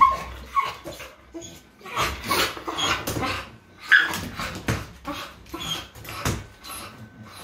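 Young dog whining and yipping over and over in short cries while it stands with its front paws up on a wire-mesh playpen gate, with knocks and rattles of the gate among the cries.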